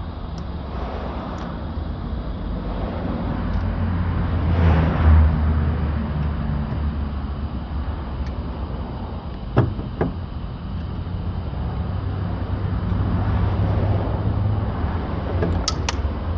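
Low outdoor rumble of road traffic that swells twice as vehicles pass, with a few sharp clicks of a screwdriver on the bare car door: a pair about ten seconds in and another pair near the end.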